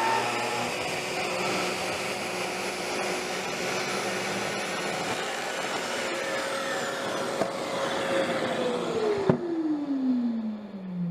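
Festool TS75 plunge track saw running through a wood cut along its guide rail, with its hooked-up dust extractor drawing air. Near the end the saw is switched off and the motor winds down with a falling pitch.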